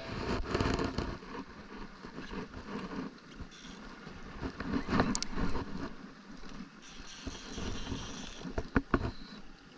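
Wind buffeting the microphone and water sloshing around a kayak, with scattered sharp clicks and knocks from a conventional fishing reel being cranked against a hooked fish.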